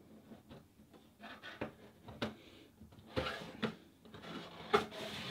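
Cardboard box being opened by hand: the lid lifts, and its flaps and tabs slide and scrape against the box, with scattered light taps and rustles that are busiest from about three seconds in.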